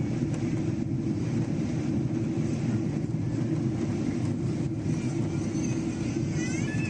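Steady low rumble of a Boeing 777-300's engines and airflow heard inside the passenger cabin on approach. A brief high, wavering squeal enters near the end.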